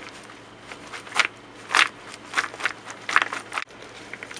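Coated Rice Chex cereal pieces rustling and crunching against each other in a bowl as they are tossed in a powdered sugar and cake-mix coating, in several irregular scratchy bursts.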